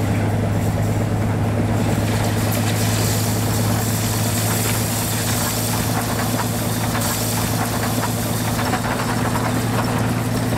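Railway snow plow train ramming through deep drifts: a steady low engine drone under the rushing hiss of snow being blasted aside, the rush growing fuller about two seconds in.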